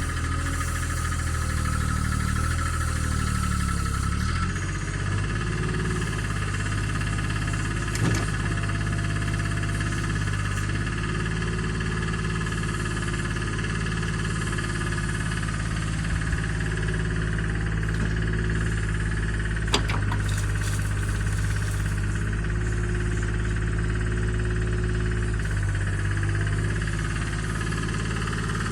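Komatsu excavator's diesel engine running steadily under working load, its tone shifting every few seconds as the hydraulics take and release load. A sharp clank about eight seconds in and another near twenty seconds.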